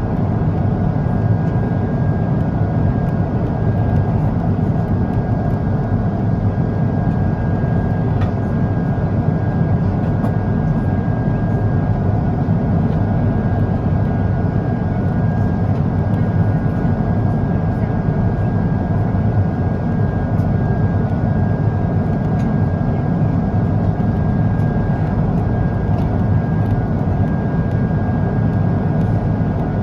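Steady airflow and engine noise inside the cabin of an Airbus A350-900 in flight, a constant rushing hum with a faint steady whine above it.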